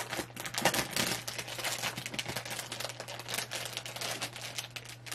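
Rapid, irregular small clicks and taps from hands working with small hard objects out of frame, over a steady low electrical hum.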